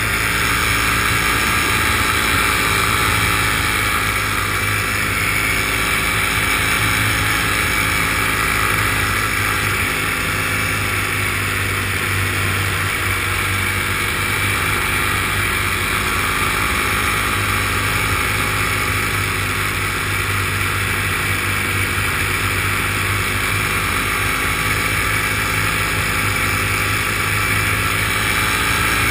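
Engine of a small aircraft running steadily in flight, heard from on board, with wind rushing over the microphone.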